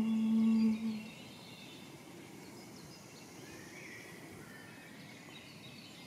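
A sustained, evenly pitched hummed drone note fades out about a second in. What is left is faint outdoor ambience with a few soft, scattered bird chirps.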